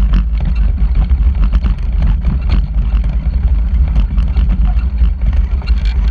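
Vehicle driving along a rough dirt track: a steady loud low rumble with frequent rattles and knocks from the bumps.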